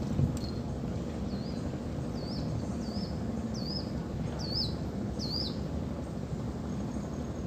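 A bird calling seven short, high whistled notes, each a quick twist down and up in pitch, about one every three-quarters of a second and growing louder toward the end. Behind them is a steady low rumble with a faint hum, and there is a single knock just after the start.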